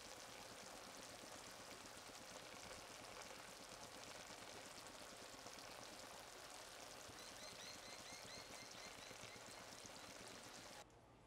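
Shakshuka, eggs in tomato sauce, simmering in the pan: a faint, steady fine crackle and sizzle that cuts off suddenly near the end.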